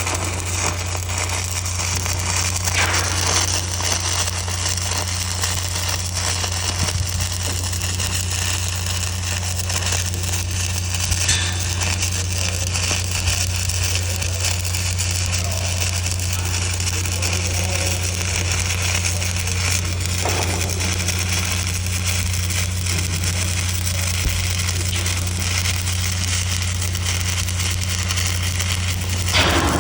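Electric arc welding: the arc crackles and sizzles steadily without a break, over a constant low hum.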